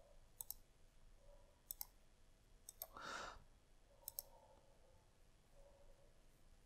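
Faint computer mouse button clicks, coming in four quick pairs, with a short soft rush of noise about three seconds in.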